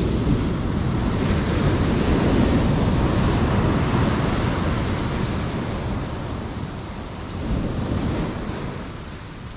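Ocean surf breaking and washing up a sandy beach: the rush swells over the first two seconds, slowly ebbs away, and a smaller surge comes in near the end.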